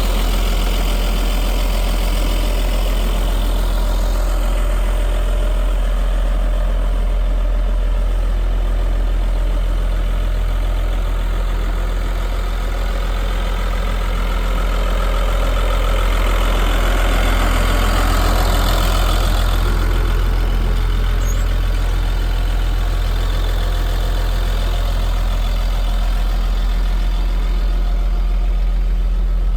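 Caterpillar D5N crawler bulldozer's diesel engine running steadily with a deep, even hum. It swells briefly and a little louder about halfway through.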